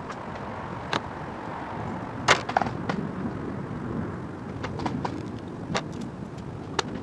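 A few short clicks and light taps, the sharpest about two seconds in, from rubber weatherstrip tape being handled and pressed onto a skylight's metal flashing. Steady outdoor background noise runs underneath.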